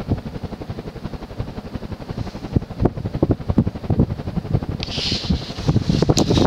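GGC Tropic-Aire ceiling fan with a Fasco motor running on high speed, its blades pushing a strong draught that buffets the microphone in a rapid, uneven low flutter. A brief hiss comes about five seconds in.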